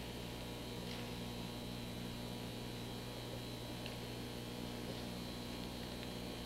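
Steady electrical mains hum with hiss, the background noise of an old 1980s videotape recording; nothing else stands out.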